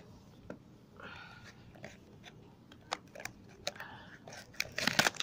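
Paperboard box being handled and its tuck flap pried open by hand: scattered clicks and crinkles of card, with a denser run of louder crackles near the end.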